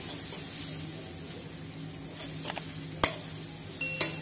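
Onion, carrot and green chilli frying with a light sizzle in a steel kadai while a metal slotted ladle stirs them and scrapes the pan, with two sharp clanks of the ladle against the pan about three and four seconds in.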